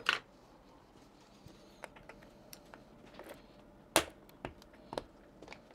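Scattered light clicks and taps of a screwdriver working the screws out of a door knob's mounting plate, with a sharper knock about four seconds in and two more soon after.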